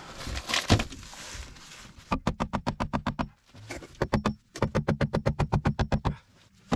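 A knock less than a second in, then a dog panting rapidly, about ten breaths a second, in two runs with a short break between them.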